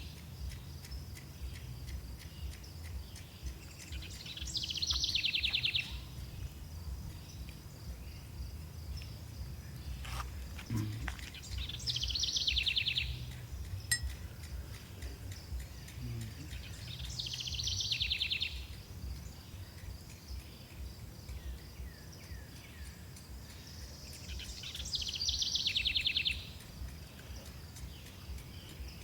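An insect calling with a rapid pulsing trill, each call about two seconds long, swelling in loudness and then cutting off, repeated four times every six to eight seconds over a steady low rumble.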